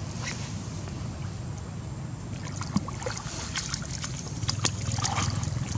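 Water lapping and splashing around a swimming long-tailed macaque carrying her infant, with scattered small splashes and drips over a steady low rumble.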